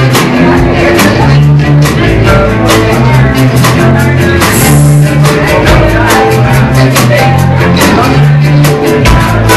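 Rock band playing live: electric guitars and bass over a steady drum beat, recorded very loud.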